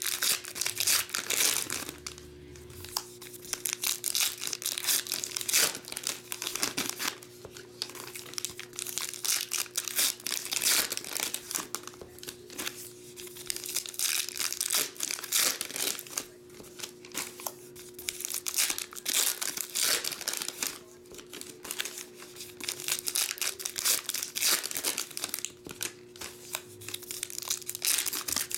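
Foil baseball card packs being torn open and their wrappers crinkled by hand. The crackling comes in repeated bursts with short pauses between, pack after pack.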